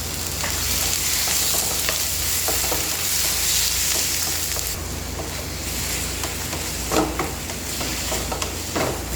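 Chicken breast pieces sizzling in hot oil with garlic and onion in a pan while being stirred, with light clicks of the utensil against the pan. The sizzle is strongest in the first half and eases somewhat about five seconds in.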